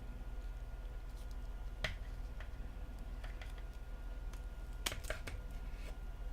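Small sharp clicks and taps of Samsung Galaxy S6 parts being handled and pressed into the phone's frame: one distinct click about two seconds in and a quick cluster of clicks around five seconds, with fainter ticks between, over a steady low hum.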